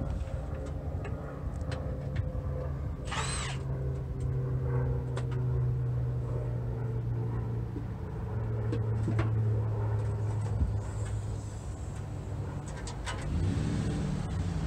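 Steady low mechanical hum, with scattered light clicks and taps of hand tools at the transmission pan under the van, and a brief high rising squeak about three seconds in.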